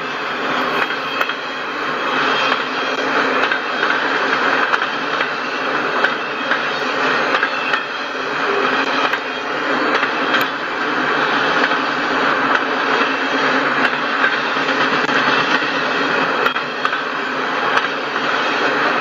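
Autorack freight cars rolling past: a steady noise of steel wheels on rail, with a few faint clicks scattered through it.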